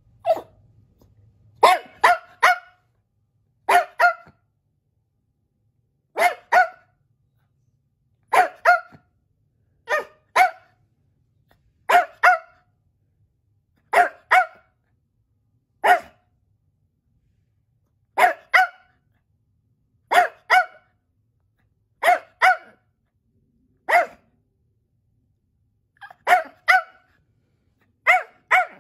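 A small dog barking: short, sharp barks in quick pairs or threes, repeated about every two seconds.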